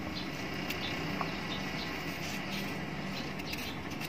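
A small kitchen knife scraping and cutting the skin off a raw potato by hand: short, faint scratchy strokes several times a second, over a steady background hum.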